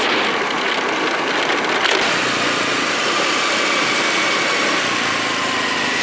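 125cc scooter being ridden along a road: its engine runs steadily with a faint whine, under a steady rush of wind and road noise.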